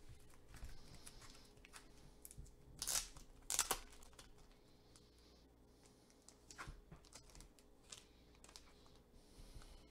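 Faint handling of a trading card in a clear hard plastic holder: light plastic clicks and rustles, with two louder short scrapes about three and three and a half seconds in.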